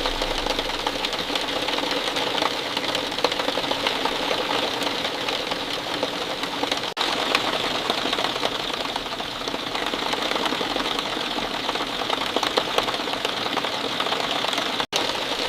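Steady rainfall, a dense patter of countless drops ticking rapidly, with the sound cutting out for an instant about seven seconds in.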